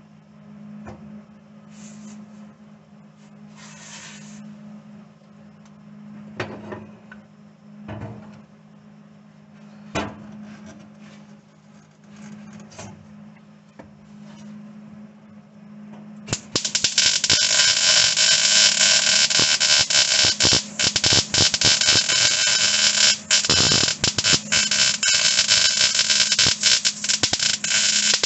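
A low steady hum with a few scattered knocks, then about sixteen seconds in a MIG welder's arc strikes and crackles steadily while welding steel floor sheet metal, with one short break a few seconds later.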